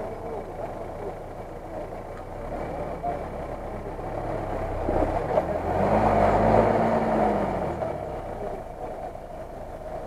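Lada Niva (VAZ-2121) engine running at low revs while the 4x4 works through a mud hole. About five and a half seconds in it revs up once and drops back, with a rush of noise from the wheels in the mud as it does.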